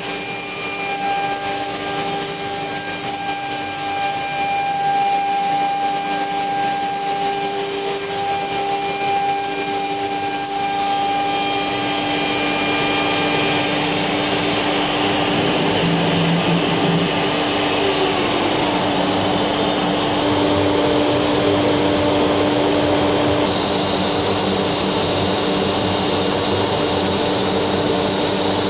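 CNC router (COMAGRAV NOTUS 1600) routing 10 mm plywood, with its dust collector and vacuum hold-down table running: a steady machine rush with several held tones. About ten seconds in it grows louder and fuller, and around eighteen seconds one tone slides down in pitch.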